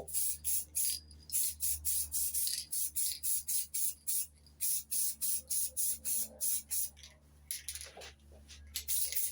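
Aerosol spray can of yellow paint hissing in rapid short bursts, about three a second, as the colour coat goes onto a car's cooling fan. The bursts pause briefly near the end, then a few more follow.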